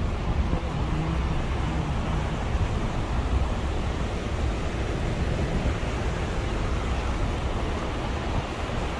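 Steady road rumble of a vehicle driving along, with wind buffeting the microphone.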